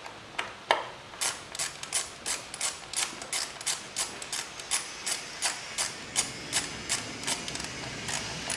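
Ratchet wrench clicking steadily, about three clicks a second, as a socket on an extension runs an ignition coil hold-down bolt back in.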